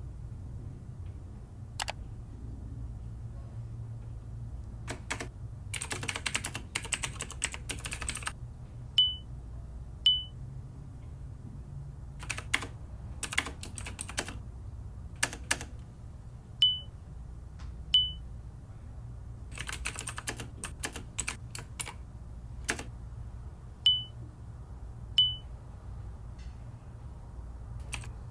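Bursts of typing on a computer keyboard, broken by three pairs of short, high electronic beeps, each pair about a second apart, from an instant-messenger chat. A steady low hum runs underneath.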